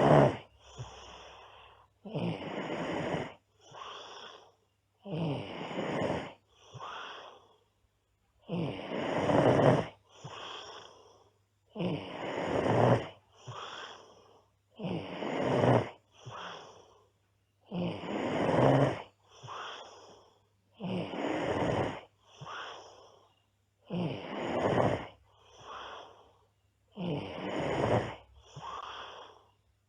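A girl snoring steadily: each loud snore, about a second long, is followed by a shorter, softer one, and the pair repeats roughly every three seconds.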